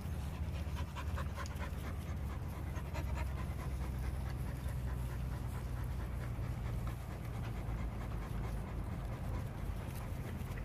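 Dogs panting as they play, with light scuffing ticks over a steady low rumble.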